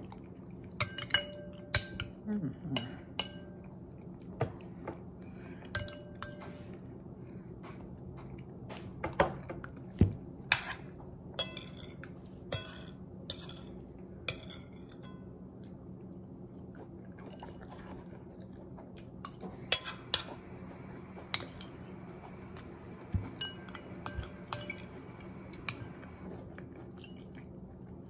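Metal spoon clinking and scraping against a ceramic bowl and plate: irregular sharp clinks, some ringing briefly, with chewing between them.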